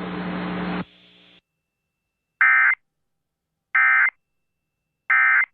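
Emergency Alert System end-of-message tones: three short, harsh digital data bursts of SAME code, about 1.3 s apart, marking the end of the broadcast alert. Before them, the broadcast's hum and hiss runs on for just under a second and then cuts off.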